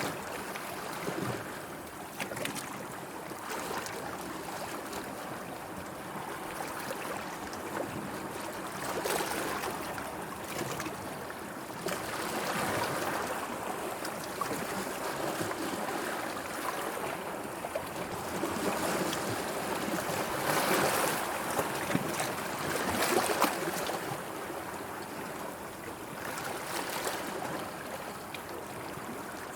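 Sea water lapping and washing in small waves, swelling and fading every few seconds, with a few stronger surges in the second half.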